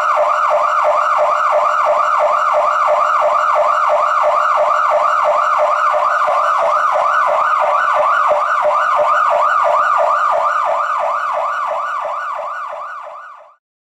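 A siren wailing in a fast yelp, its pitch sweeping up and down about four times a second. It is loud and steady, then fades out and stops shortly before the end.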